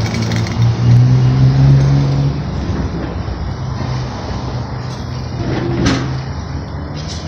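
A motor vehicle engine running, its pitch rising briefly and then settling lower and quieter about two seconds in, with a single sharp knock near the end.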